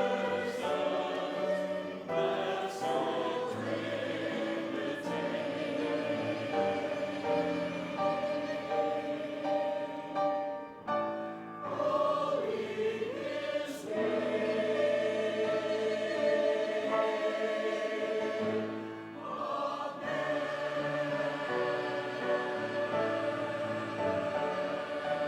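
A choir singing held, sustained notes in parts, with short breaks between phrases about eleven and nineteen seconds in.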